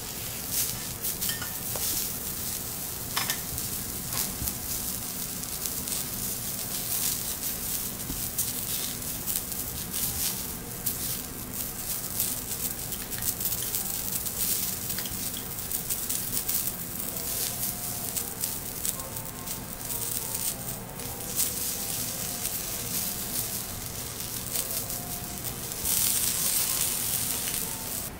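Halved eggplants sizzling and crackling on a hot steel teppanyaki griddle, with a few light taps of metal spatula and knife on the steel early on. The sizzle grows louder for a couple of seconds near the end.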